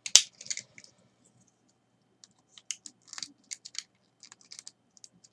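Hard plastic parts of a G1 Transformers Skywarp jet toy clicking and tapping as a spare Seeker wing is handled and pushed onto it. There is one sharp click just after the start, then scattered clusters of small clicks.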